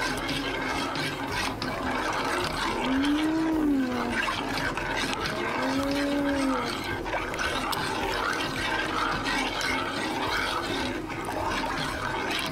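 Chocolate milk being stirred in a saucepan on a gas burner: steady swishing of the liquid with light clicks of the spoon against the pot. A voice makes two short rising-and-falling sounds about three and six seconds in.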